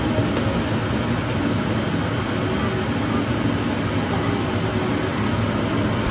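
Steady running-machine noise with a faint hum, unbroken and even in level.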